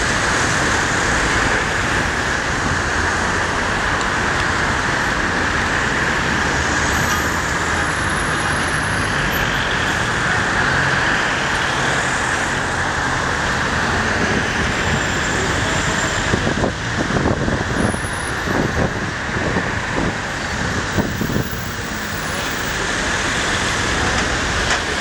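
Steady city traffic noise heard from a moving tour bus: the running of the surrounding cars, taxis and buses on a busy boulevard, with some uneven rumbles in the second half.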